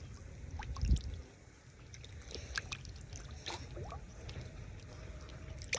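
Water sloshing and squelching as hands work through shallow, muddy water, with a soft low thump about a second in.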